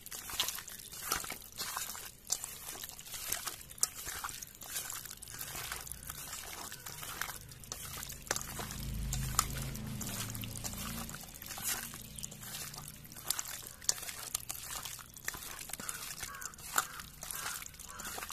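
Raw chicken pieces squelching and slapping wetly as a hand kneads them in a stainless steel bowl with mustard oil and coriander-leaf and green-chilli paste: irregular sticky smacks throughout. A brief low hum comes in around the middle.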